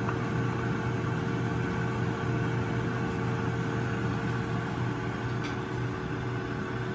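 Countertop air fryer running mid-cook: a steady fan hum with a low drone underneath.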